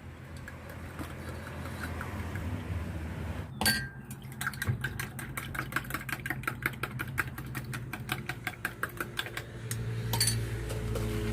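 Quick, even clicking or clinking, about five strokes a second, runs for several seconds after a single knock. About ten seconds in, a louder low steady hum starts.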